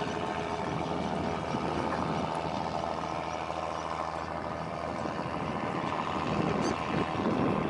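Wooden fishing boat's engine running steadily with a low hum, over the rush of water churned up at its bow.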